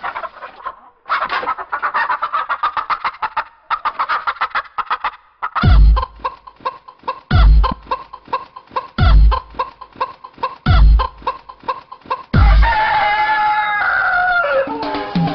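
Dance music built on chicken sounds: rapid clucking, then heavy bass beats about every second and a half under short clucks, ending in a long crowing call that falls in pitch.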